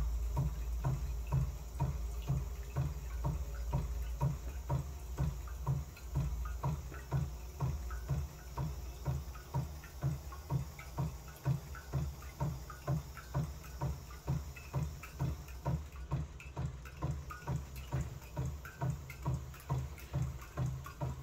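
Quarter-scale model Rider-Ericsson hot-air pumping engine running on its first fire, giving a steady rhythmic beat of about two to three low thumps a second, with water trickling from its pump into a jar. A low rumble, the propane burner under the firebox, fades out after about six seconds as the flame is turned down.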